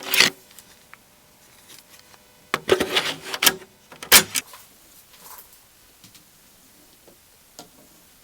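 Macintosh Plus's internal 3.5-inch floppy drive taking in and reading a disk: a clunk at the start, a quick run of clacking about three seconds in, a sharp clack at about four seconds, then a few faint ticks.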